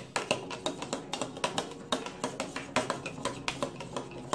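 A spoon stirring in a plastic cup of water, tapping and scraping against the cup's sides and bottom in quick, irregular clicks.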